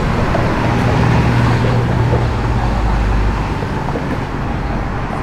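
City street traffic with a vehicle engine's low rumble close by, loudest from about one to three seconds in, then easing off.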